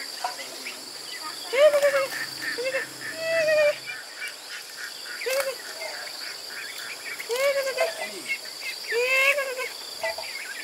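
Young ducks calling, a series of short rising-and-falling calls coming every second or so, over a steady high insect drone.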